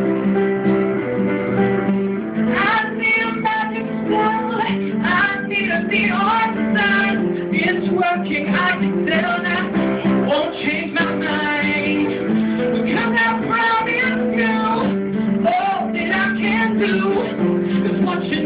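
Live piano-and-vocal song: sustained piano chords, with a man singing over them from about two and a half seconds in.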